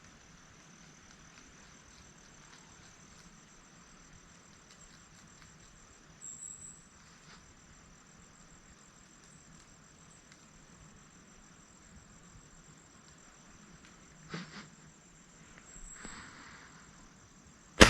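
Insects trilling steadily at a high pitch, with a few faint rustles, then right at the end a single sharp crack from an air rifle being fired.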